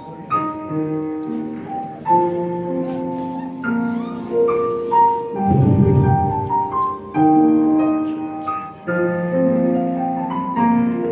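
Keyboard playing slow, sustained piano-style chords, with a new chord every second or two. A short low rumble sounds about halfway through.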